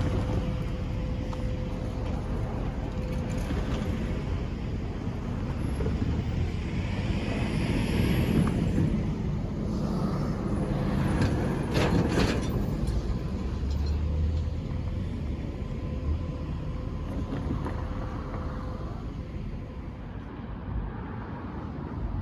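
A diesel locomotive running with a steady low rumble and a thin whine that stops near the end, with a few sharp metallic clanks about halfway through.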